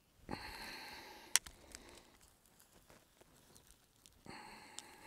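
Rock pick scraping and pulling down loose, gravelly dirt, with one sharp click about a second and a half in, like the pick striking a stone. A second stretch of scraping near the end as the dirt is spread out.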